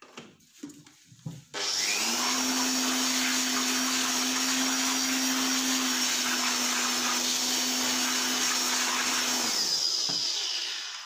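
Handheld electric air blower switched on about a second and a half in, blowing air into an opened induction cooktop: a loud rush of air over a steady motor hum. It spins up quickly, runs at an even pitch, then is switched off near the end and winds down with a falling pitch.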